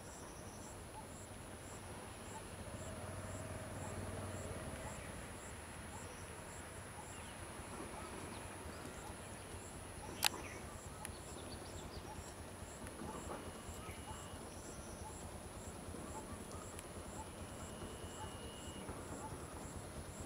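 Insects buzzing steadily, with a high constant whine and a regular pulsing chirp under it. One sharp click stands out about ten seconds in.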